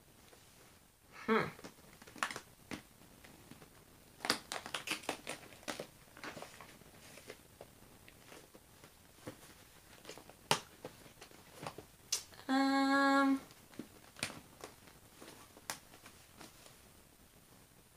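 Light clicks and taps of clear plastic diamond-drill storage containers being handled in a storage case. A short falling whine comes about a second in. A steady pitched tone lasting about a second comes about two-thirds of the way through and is the loudest sound.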